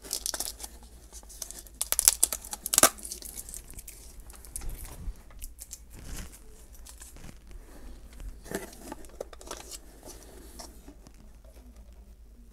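Crackling and clicking of a clear plastic deli cup as it is handled and its snap-on lid is pried off, with the loudest sharp cracks about two to three seconds in.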